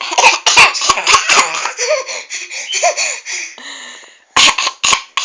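A woman coughing and a baby laughing. A run of sharp coughs in the first second and a half is mixed with the baby's high, gliding laughter, which goes on to about four seconds in, and two or three more short coughs come near the end.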